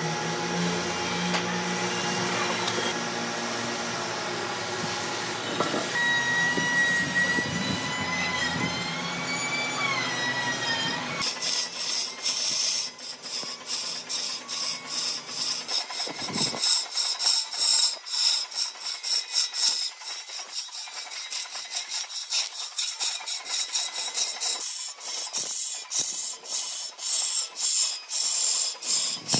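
A power tool runs for about the first third, its pitch wavering. Then, after an abrupt change, rhythmic back-and-forth strokes of an abrasive rubbing on wood, about two strokes a second, as in hand sanding or rasping.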